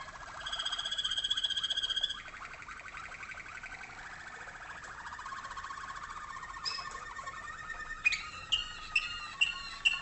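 Waterslager (Malinois) canary song: a loud, fast high-pitched trill for the first two seconds, then lower, rolling notes. Near the end come about five sharp, clipped notes a little under half a second apart.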